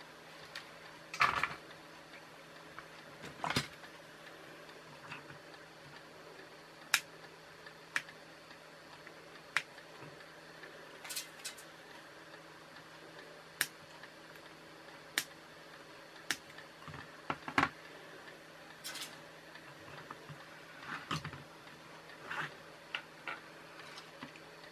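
Irregular sharp clicks and light taps of small electronic components, wire leads and a hand tool being handled on a workbench, over a faint steady hum.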